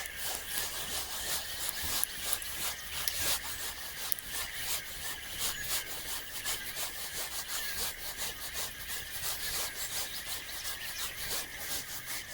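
Spinning reel being cranked steadily to retrieve a lure: a continuous whirring whine with a fast, even rasping from the turning rotor and line.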